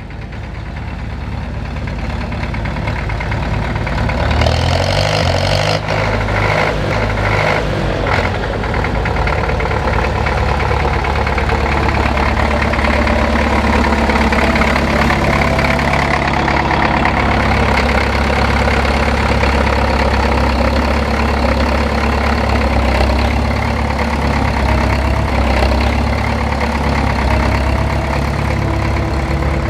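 Tractor diesel engine running: it builds up over the first few seconds, rises in pitch about four seconds in, then settles into a steady, even run.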